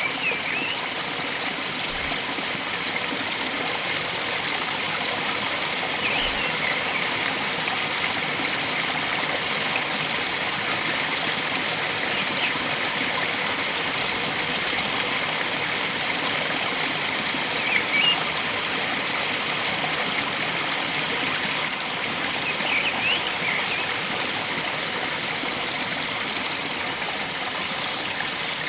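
Steady rush of flowing stream water, with short high bird chirps every five or six seconds.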